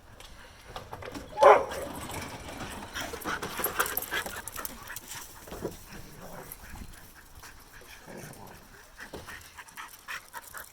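Dogs playing hard: one dog gives a single loud, short cry about a second and a half in, followed by panting and scuffling that tails off.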